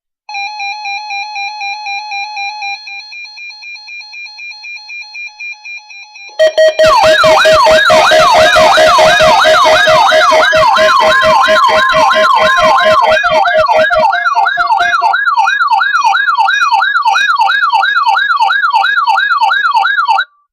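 Electronic alert tones: a fast steady-pitched beeping, about four beeps a second, for about six seconds, then a loud electronic siren of several layered tones sweeping up and down a few times a second, which cuts off suddenly near the end.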